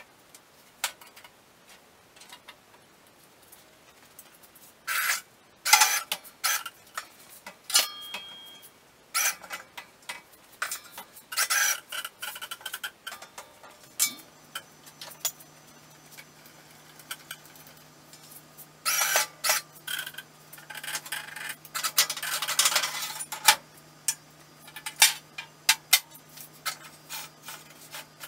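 Steel plate being handled at a plasma cutting table, clanking and scraping against metal in several bursts of clatter. A low steady hum comes on about halfway through.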